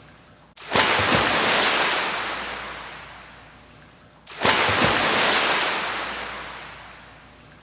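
Ocean waves breaking on a shore, twice, about four seconds apart: each wave comes in suddenly with a low rumble, then its wash fades away slowly.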